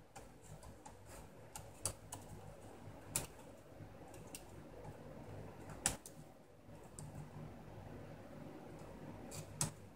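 Light plastic clicks and taps of fingers handling an opened laptop's case, pulling speaker wires from their routing and working the small plastic catches. The clicks are scattered and irregular, the sharpest about six seconds in.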